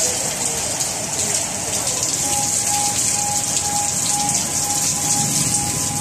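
Heavy rain pouring onto pavement and parked cars, a steady hiss. About two seconds in, a high beeping tone starts, pulsing a few times a second above the rain.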